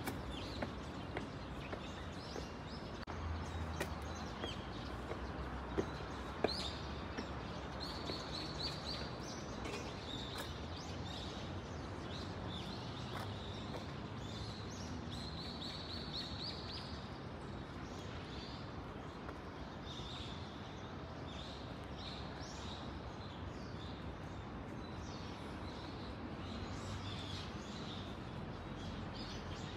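Outdoor city ambience: a steady low hum with small birds chirping in short repeated phrases. A few sharp footstep clicks on stone come in the first several seconds.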